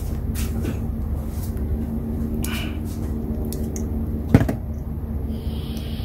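Red insulated crimp connectors being crimped with pliers and fitted together on a wire: a few light clicks, then one sharp snap about four seconds in.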